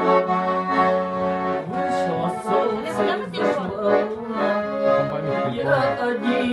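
Accordion playing a tune: a melody moving over held chords.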